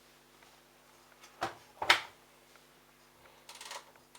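Two sharp knocks about half a second apart, then a short rattle, from hard plastic parts of a washing machine's pump filter housing being handled.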